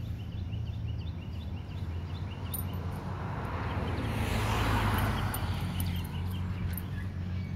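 Outdoor background: a steady low hum with faint, quickly repeated high chirps, and a whooshing noise that swells and fades about halfway through.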